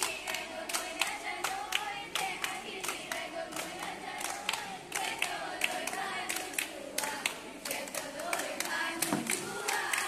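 A group of girls singing together without instruments while clapping their hands in a steady rhythm, about three claps a second.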